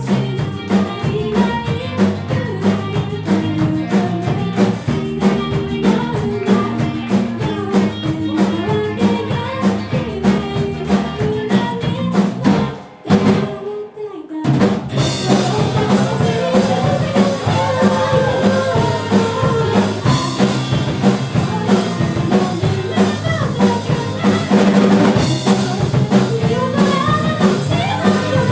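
Live rock band playing: drum kit, bass and guitar with a steady beat. About halfway through the band stops for a moment, then comes back in with crashing cymbals.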